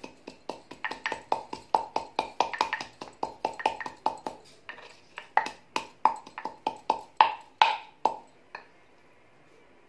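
Wooden pestle knocking in a small wooden mortar, about four strikes a second, each with a brief ring, as a green chilli is coarsely crushed. The strikes slow a little after a few seconds and stop shortly before the end.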